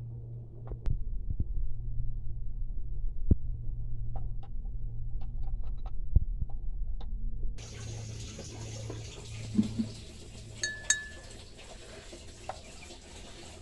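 Handling noise with a steady low hum and scattered knocks, muffled, for the first seven seconds or so. Then quieter handling of fired clay pieces, with a couple of light ceramic clinks, one ringing briefly, about eleven seconds in.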